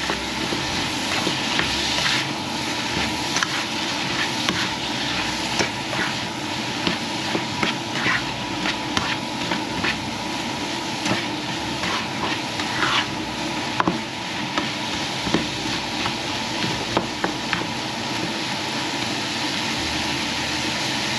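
Bitter melon rings and onions sizzling in hot oil in a frying pan, stirred with a spatula that scrapes and knocks against the pan at irregular moments, the scraping thinning out toward the end.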